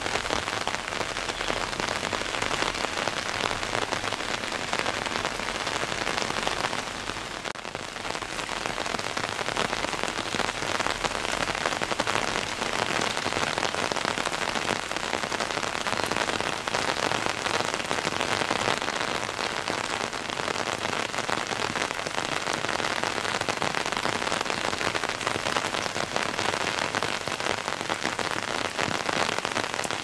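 Steady rain pattering, an even dense hiss of many small drops that eases briefly about seven seconds in.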